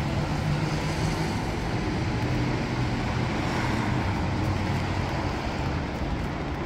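Steady traffic noise from a wet street, a continuous hiss with a low engine hum in the first couple of seconds.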